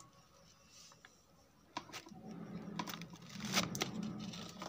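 A socket wrench with an extension bar working a bolt on a motorcycle engine's crankcase: a handful of sharp metallic clicks and taps, with low rubbing and handling noise in the second half.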